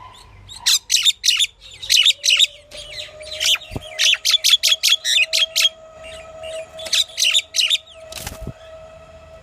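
Pied myna calling in quick runs of short, sharp, high chirps, coming in several bursts with short pauses between. A faint steady whistling tone runs underneath from about a second and a half in, and there is a brief rustling noise near the end.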